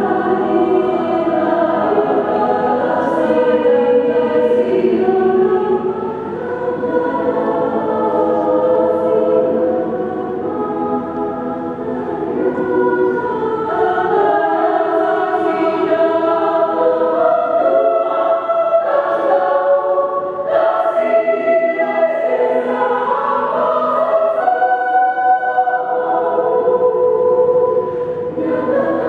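Women's choir singing in several parts, with held chords and brief dips between phrases.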